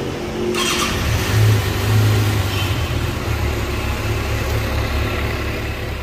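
Brand-new 2024 Kawasaki ZX-6R's 636 cc inline-four catching and starting about half a second in, then running with a couple of short revs near the start and settling to a steady idle.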